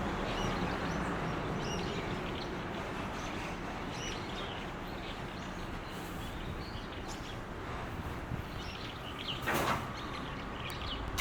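Faint, scattered short high calls of a Daurian redstart over a steady low background rumble. A brief louder rushing noise about nine and a half seconds in.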